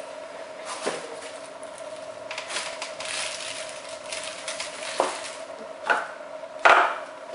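Camera packaging being handled: plastic wrapping rustles, with a few sharp knocks and clicks as small boxes and items are picked up and set down, the loudest knock near the end.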